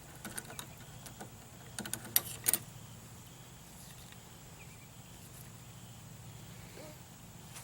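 Several light clicks and knocks in the first two and a half seconds, then only a faint, low, steady hum.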